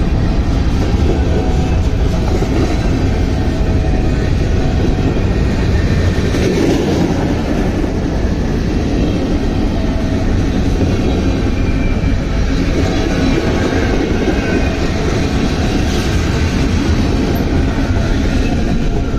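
CSX freight train rolling past: a steady, loud rumble of wheels and cars on the rails, with some clickety-clack.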